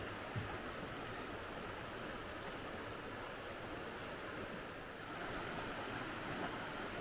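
Mountain torrent rushing steadily, a constant hiss of running water that gets a little louder about five seconds in.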